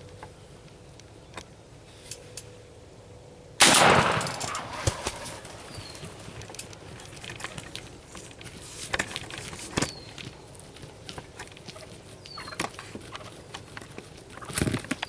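Wild turkey gobbling, loud and sudden about three and a half seconds in, with another shorter gobble near the end.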